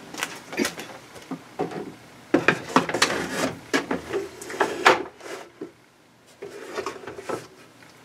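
Plastic car console parts being handled and fitted together: irregular clicks, knocks and rubbing of hard plastic, with a brief pause near the middle.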